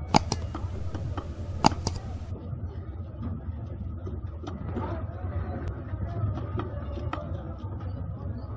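Steaks of a giant ayer catfish being cut on a bonti, a fixed upright curved blade: two sharp knocks in the first two seconds, then lighter ticks of fish and blade, over a steady low engine rumble.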